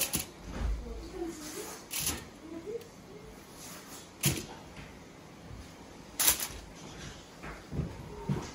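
Kitchen handling noises: about five short, sharp clicks or knocks, roughly two seconds apart, with faint voices in the background.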